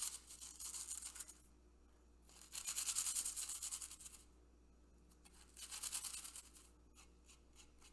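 Cheetos being ground into dust: quick, scratchy rubbing strokes in three short bursts with pauses between.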